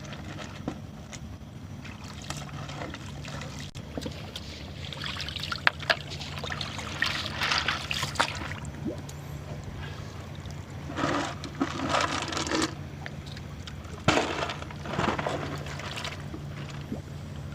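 Seawater trickling and sloshing among shore rocks, swelling louder several times, with a few sharp clicks over a steady low hum.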